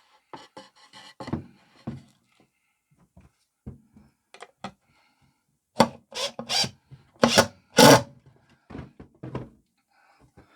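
Wooden post and base knocking and rubbing together as a screw is driven through the base into the post's pilot hole. The sounds are irregular short knocks, the loudest several coming about six to eight seconds in.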